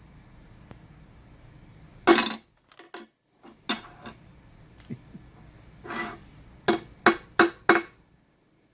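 Hammer blows on metal, hammering a press-fit nut onto the bolt of a Ryobi printing press tail clamp. About ten sharp, ringing strikes at uneven spacing, ending in a quick run of four.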